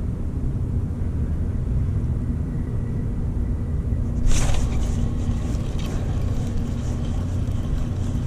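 A steady low rumble with a faint steady hum underneath, and a brief rustle of handling about four seconds in, followed by a few faint clicks.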